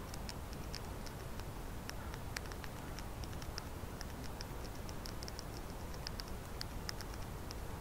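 Many quick, irregular high-pitched ticks and clicks, sometimes several a second, over a steady hiss from a volume-boosted recorder.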